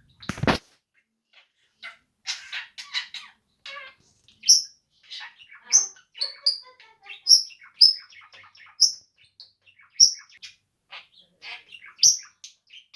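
Pet budgerigar chirping and chattering: quick scratchy warbling broken by repeated sharp, high peeps. A brief loud thump comes just before it, near the start.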